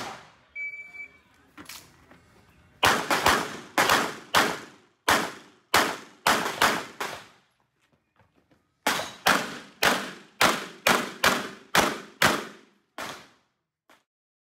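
A handgun fired fast in a practical shooting stage: a single short electronic start beep from the shot timer, then a rapid string of about a dozen shots, a break of about a second and a half, and a second quick string of about a dozen shots. A sharp bang comes at the very start, and the sound cuts off after the last shots.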